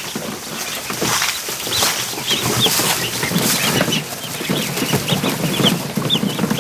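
A flock of young ducklings peeping, many short high chirps over one another, over a dense rustle of them scrambling about.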